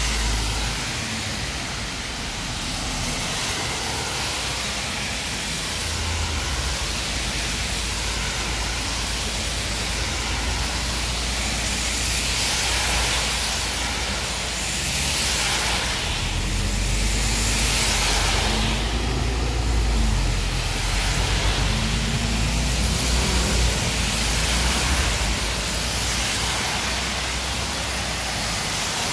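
Heavy rain falling steadily on a road, with cars and a city bus driving past through the water, their tyres hissing on the wet surface. The passes swell loudest around the middle, with a low engine rumble under the rain.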